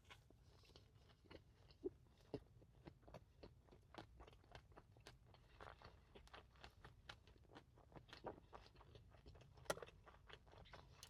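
A person chewing fast food: a steady run of short crisp crunches and mouth clicks, several a second, with a few louder crunches about two seconds in and near the end.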